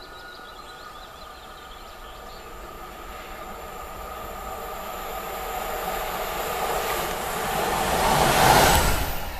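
VR Sr2 electric locomotive hauling double-deck passenger coaches, approaching and passing close by. Its running noise carries a steady high whine and grows louder over several seconds, peaking as the locomotive goes past near the end.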